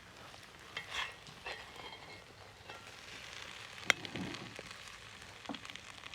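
A metal spoon or ladle scraping and clinking inside a cast-iron kazan as plov is dished out, with scattered clinks over a low hiss and one sharp, loud clink about four seconds in.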